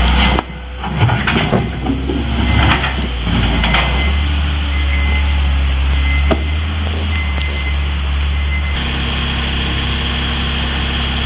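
Diesel engine of a Hyundai 740-3 wheel loader running steadily while it works, its note shifting a few times as the load changes. A few sharp knocks sound in the first six seconds.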